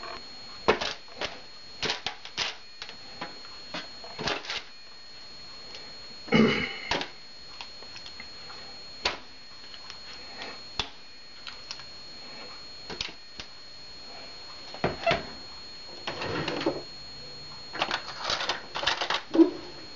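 Raw chicken wings being laid one by one into a disposable aluminium foil pan: irregular taps, clicks and crinkles of the thin foil, the loudest about six and a half seconds in and a cluster near the end.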